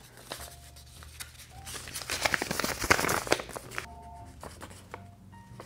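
A small paper care card being handled and unfolded: paper crinkling and rustling in a run of short crackles, loudest about two to three seconds in, then quieter.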